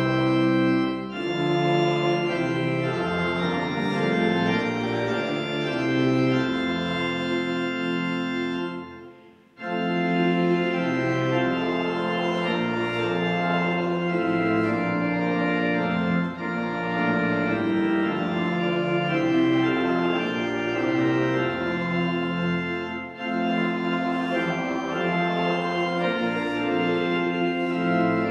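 Pipe organ playing a hymn in sustained, full chords that change about once a second. The organ breaks off briefly about nine seconds in, as between verses, then starts again.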